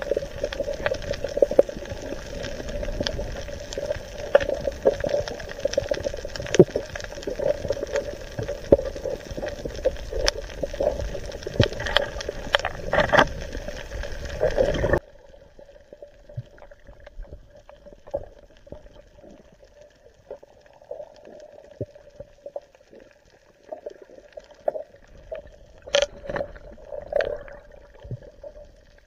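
Underwater sound picked up by a submerged camera: a muffled water rush and bubbling under a steady hum, with many scattered clicks and crackles. About halfway through it drops suddenly to a much quieter hiss with occasional clicks.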